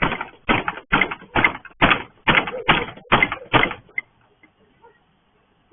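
Repeated heavy banging on a gate, about two blows a second, around nine strikes, stopping suddenly about four seconds in.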